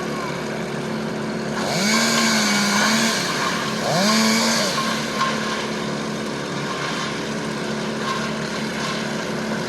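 Chainsaw cutting up a felled tree trunk, revved up twice, about two and four seconds in, over a steady engine drone.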